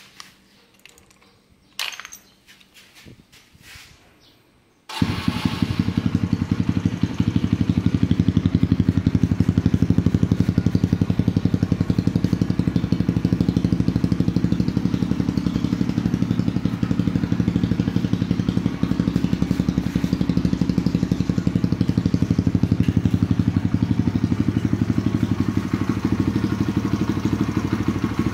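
Kawasaki D-Tracker 150's single-cylinder four-stroke engine, breathing through a Norifumi TORC aftermarket exhaust, starts about five seconds in after a few faint clicks and then idles steadily with an even, rapid exhaust pulse.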